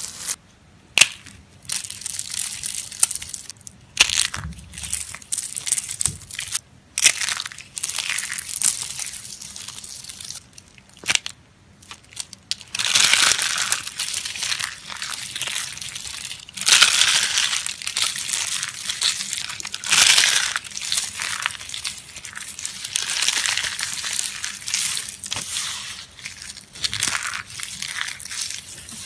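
Vintage coloured soap being crushed: crunching and crackling with a few sharp snaps in the first half. The crunching turns denser and louder from about halfway.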